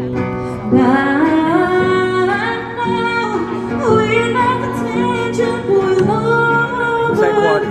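A woman singing a slow song live over instrumental accompaniment, with long held notes.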